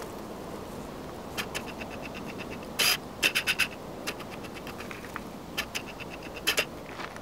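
A series of short scratchy clicks and scrapes, about a dozen, the loudest a brief cluster about three seconds in, over a steady low background hiss.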